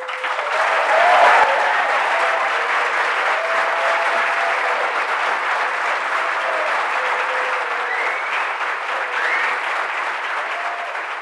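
Audience applauding at the close of a speech, a dense steady clapping that tapers off near the end.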